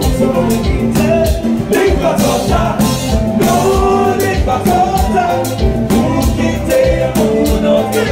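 Haitian konpa band music with a lead vocal over a steady drum beat.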